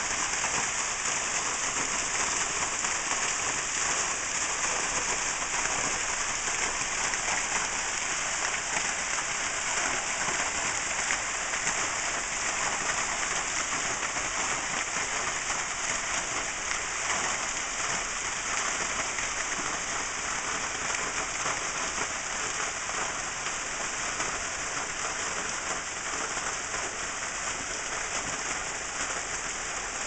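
Small hot-spring waterfall spilling down a rock face and splashing onto gravel: a steady splashing hiss that eases off slightly toward the end.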